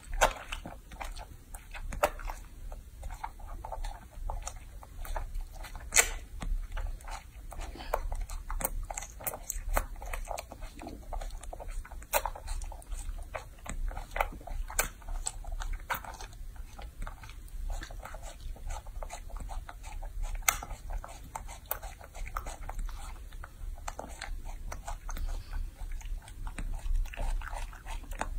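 Baby macaque chewing and biting juicy fruit close to the microphone: quick, irregular wet smacks and crunchy clicks, with a louder snap now and then.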